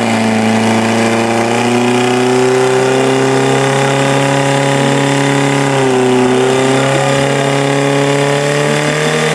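Portable fire pump's petrol engine running at full throttle under load, a steady high engine note as it drives water through the hoses to the nozzles. About six seconds in, the pitch dips briefly, then recovers.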